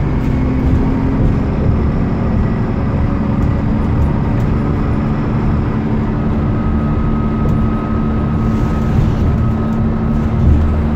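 Transbus Trident 2 double-decker bus under way, heard from inside the upper deck: a steady engine and drivetrain drone over road rumble. A thin whine comes in about halfway through and fades again near the end.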